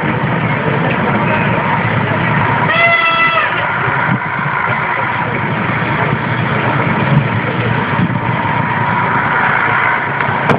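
An engine running steadily through the rescue demonstration, with a short, flat pitched tone about three seconds in.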